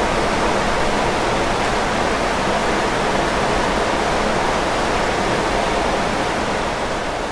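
Heavy rain coming down steadily on a small arcade roof overhead; loud and even throughout.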